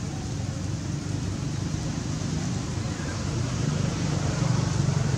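Steady low engine rumble of a nearby motor vehicle, getting louder near the end.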